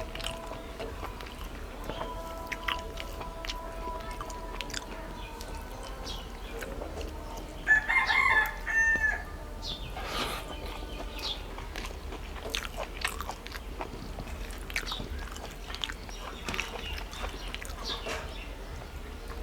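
A rooster crows once, about eight seconds in, in a call of about a second and a half; it is the loudest sound. Soft clicks and smacks of eating are scattered throughout.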